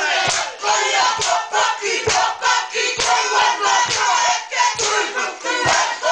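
Māori haka: a group of men and women shouting a rhythmic chant in unison, with sharp slaps and foot stamps striking about twice a second.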